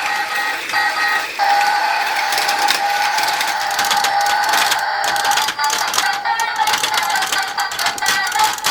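Toy parking garage's electronic sound effect playing through its small tinny speaker, a steady high held tone, with rapid plastic clicking from its ratchet mechanism, the clicks more frequent in the second half.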